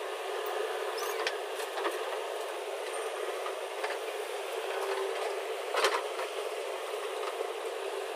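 Construction machinery running steadily, with a few sharp knocks, the loudest about six seconds in.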